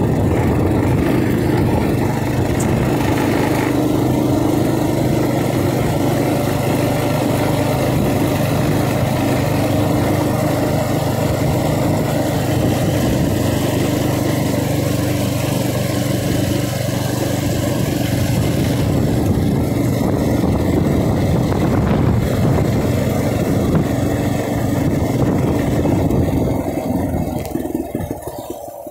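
TrailMaster MB200 mini bike's small single-cylinder four-stroke engine running steadily while riding, with a rushing noise over it. The sound fades over the last few seconds.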